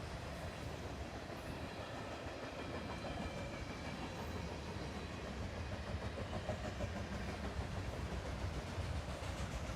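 Freight train rolling past, its steel wheels running over the rails with a steady rumble. The clickety-clack of the wheels becomes more pronounced in the second half.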